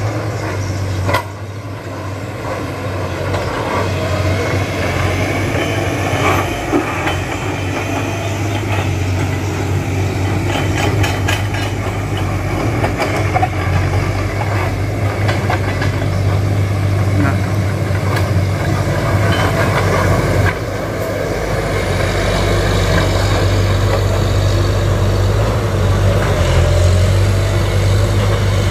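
A heavy engine running steadily with a deep, even drone, overlaid by scattered metallic clanks and rattles.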